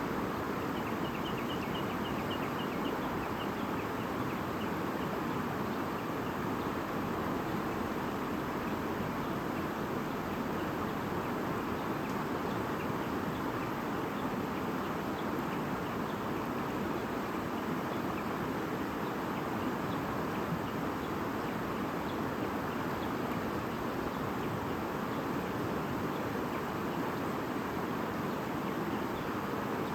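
A stream babbling steadily, with a quick run of high bird chirps from about one to three seconds in.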